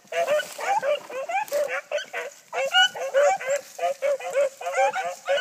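Pack of hunting dogs giving tongue on a chase, a rapid, overlapping string of short yelping bays, several a second and from more than one dog.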